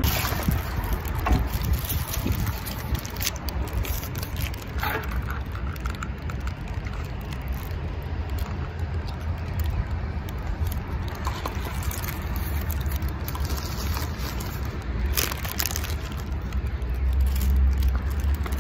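Wind buffeting the phone microphone as a low, uneven rumble that swells near the end, with a few short crinkles or clicks from handling the paper burger wrapper.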